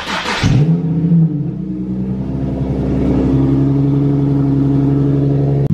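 Nissan 370Z's 3.7-litre V6 starting about half a second in, revving briefly as it catches, then settling into a steady idle.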